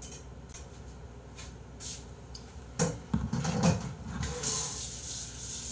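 Scattered light knocks and clatter of things being handled on a desk, busiest about three seconds in, then a steady hissing rustle over the last second and a half.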